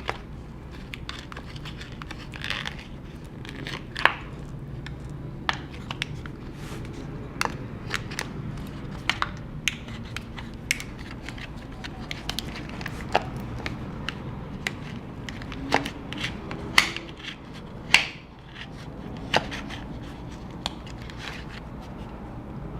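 Plastic pry tool scraping and levering under a glued laptop battery cell, with irregular sharp clicks and crackles as the softened adhesive gives way.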